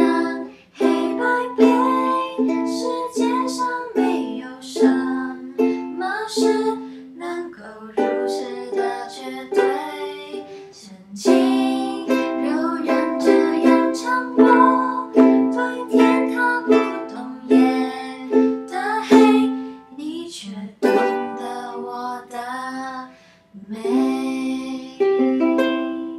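Two ukuleles strummed in chords while two voices sing a Mandarin pop song together.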